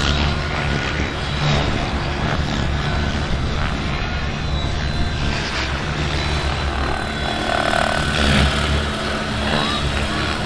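Giant-scale radio-controlled model Bell 206 Jet Ranger helicopter flying overhead, its motor and rotor running steadily, with heavy wind buffeting on the microphone.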